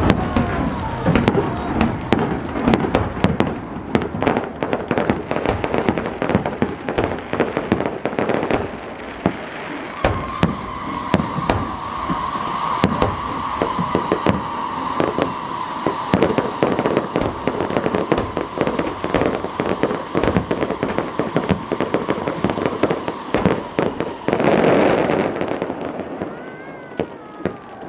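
Fireworks going off in rapid, crackling bangs, with a steady high whistle joining about ten seconds in and holding for over ten seconds, ending in a louder rushing burst near the end.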